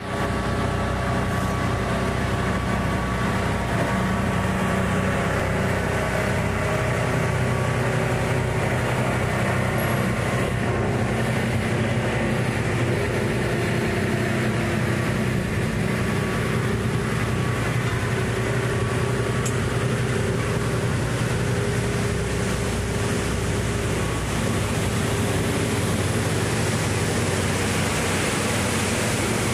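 Plastic film crushing and washing line running, its motors, conveyors and washing machinery giving a loud, steady mechanical drone with several steady hum tones over it.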